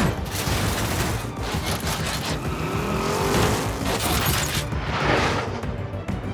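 Cartoon battle sound effects: a run of loud, noisy blasts and rushes of sound, with action music underneath.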